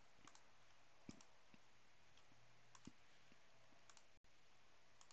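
Faint computer mouse clicks, about half a dozen scattered single clicks, over a low steady hum in near silence.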